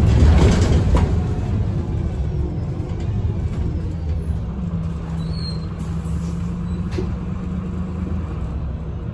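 Agora Line city bus with a Voith automatic gearbox, heard from inside the passenger cabin as it drives: a low engine and drivetrain rumble, loudest in the first second, then easing off. A steady low hum comes in about halfway through.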